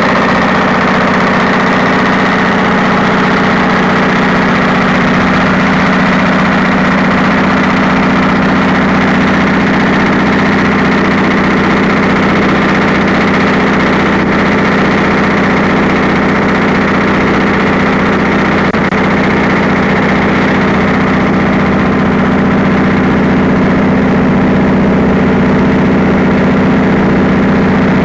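A large engine idling steadily with an even, unchanging hum.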